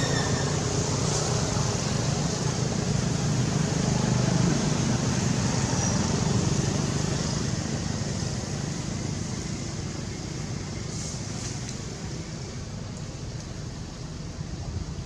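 Steady traffic noise that slowly fades away.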